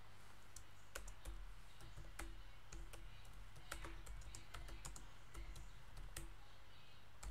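Typing on a computer keyboard: a run of irregular keystroke clicks that begins about a second in and stops about six seconds in.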